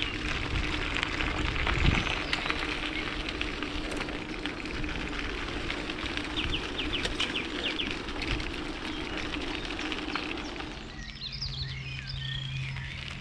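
Wind and tyre noise from riding a bicycle along a path, with a steady hum and a brief run of rapid ticking about halfway. Near the end the riding noise falls away and birds chirp.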